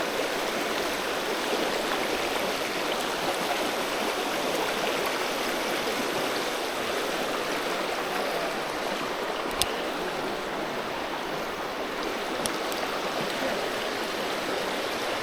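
Steady rush of a flowing creek. One short sharp click about two-thirds of the way through.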